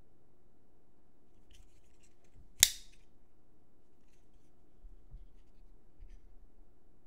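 Spyderco Native 5 lockback folding knife being opened by hand: after a faint rustle of handling, the steel blade locks open with one sharp metallic click about two and a half seconds in. A few faint ticks follow.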